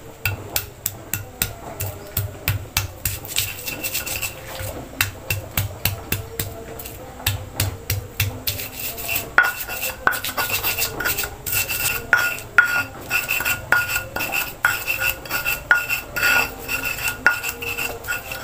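Stone pestle grinding garlic and spices into a paste on a flat stone mortar (cobek and ulekan): a steady run of gritty scrapes and knocks, about two strokes a second, with a faint ring from the stone in the second half.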